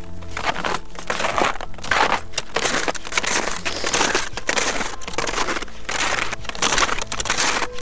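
Footsteps crunching in crusted snow, a steady walking rhythm of about two steps a second.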